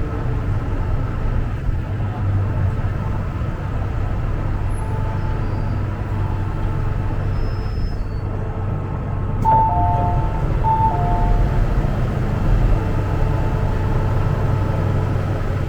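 MTR M-train electric multiple unit running steadily, heard from inside the car: a continuous low rumble of wheels on rail and running gear. A few short high squeals come about halfway through.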